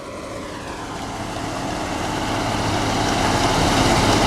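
Diesel engine and threshing machinery of a Case IH axial-flow combine harvester running, growing steadily louder as it comes closer.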